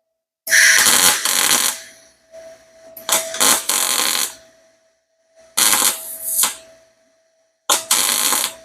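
Gas-shielded (MIG) welder laying four short tack welds on an exhaust header, each a crackling, sizzling burst of about a second with brief pauses between. A steady faint hum runs underneath.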